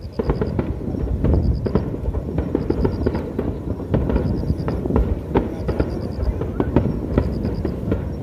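Aerial fireworks bursting in quick succession: many sharp bangs and crackling reports over a low rumble. The bangs grow louder at the very start.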